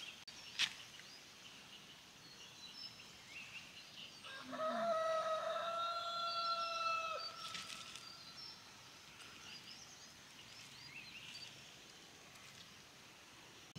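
A rooster crows once, a single drawn-out call of about three seconds starting about four seconds in, over scattered chirping of small birds.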